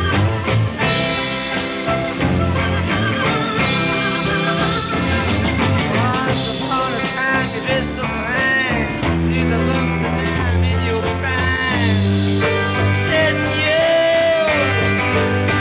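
Rock-style music with a steady bass line and sliding, bending lead notes.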